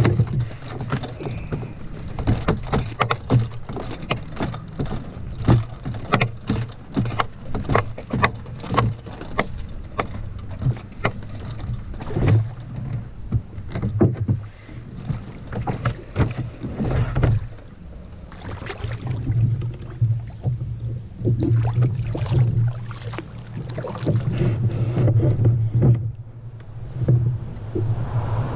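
Pelican Bounty 100 Angler kayak being paddled on the water: many sharp knocks and splashes from the paddle and hull, with a low rumble that comes and goes.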